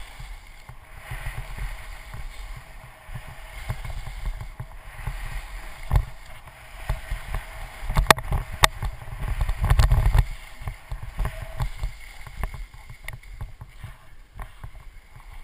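Wind buffeting an action camera's microphone during a fast descent on snow, with the hiss and scrape of edges on packed snow. A few sharp knocks come about six and eight seconds in, and the rush is loudest around the tenth second, as the rider speeds up.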